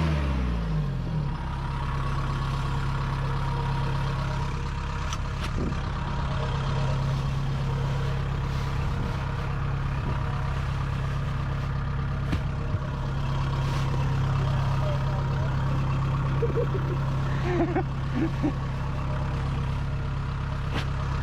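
Rice harvester's engine drops in pitch over the first second or so, then idles steadily.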